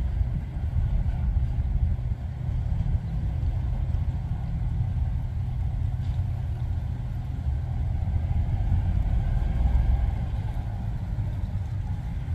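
Diesel locomotive engine running steadily at low throttle while moving slowly, shoving a single empty freight car; a continuous low rumble.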